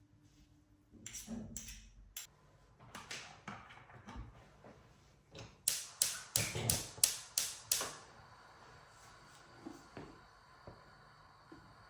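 Kitchen knocking and chopping on a cutting board: scattered knocks, then a quick run of about eight sharp chops, roughly four a second, about six seconds in.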